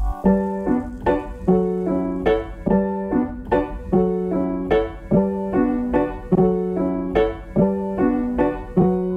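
Background music: a piano playing an even, repeating pattern of struck notes, roughly two or three a second.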